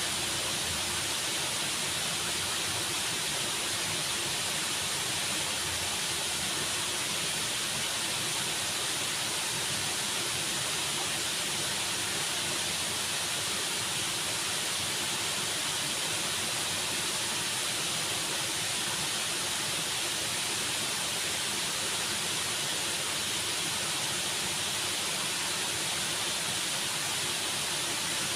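Waterfall: a steady rush of falling water, even and unbroken, with most of its energy in a high hiss.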